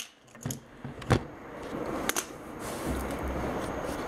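Camera handling noise: a few knocks and rubs as the camera is moved and set down low near the floor, the loudest knock about a second in, over a steady background hiss.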